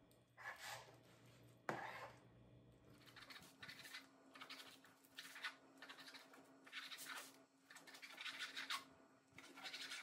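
Kitchen knife slicing through pounded-thin chicken breast onto a cutting board: a run of soft, repeated sawing strokes, with a single sharper knock about two seconds in.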